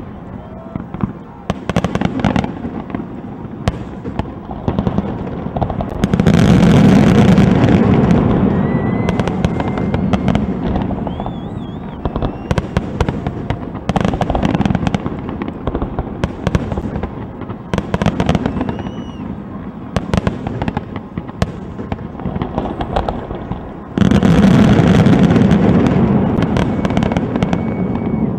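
Aerial fireworks shells bursting with sharp bangs at irregular intervals. About six seconds in, and again a few seconds before the end, the bangs come thick and fast in a dense barrage with crackle before thinning out.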